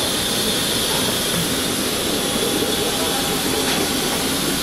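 Steady rushing hiss and hum of a parked Boeing 737-800's air supply at the forward cabin door, unbroken and even in level.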